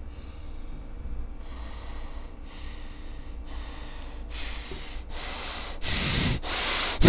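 A man's heavy, harsh breathing through the nose and mouth in building rage: hissy breaths about a second apart at first, coming faster and getting much louder near the end.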